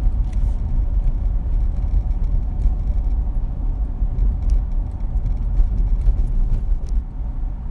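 Car being driven, a steady low rumble of engine and road noise.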